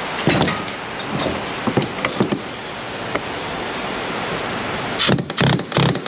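Scattered light metal clicks and taps, then a quick run of four or five louder metal knocks about five seconds in, from tools working on the fuel pump lock ring and tank. A steady background hiss runs under it all.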